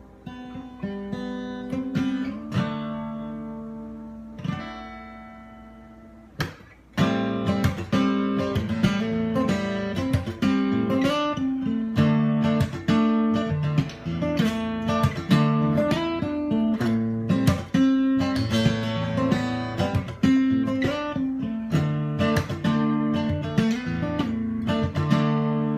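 Acoustic guitar playing an instrumental intro: a few chords struck and left to ring out, then from about seven seconds in a steady, rhythmic strummed pattern.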